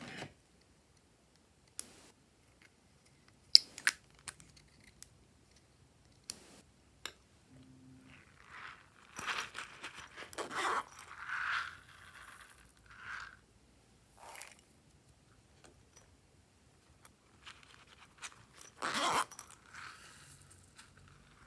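Glossy slime being worked by hand. There are sharp clicks and pops in the first few seconds, then longer crackling, squishing stretches of about a second each, several between nine and fourteen seconds in and another near the end.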